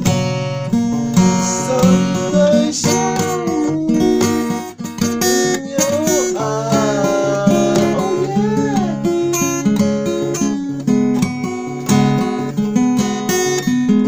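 Music: a strummed acoustic guitar playing steady chords, with a wavering, gliding melody line over it from about two seconds in until past the middle.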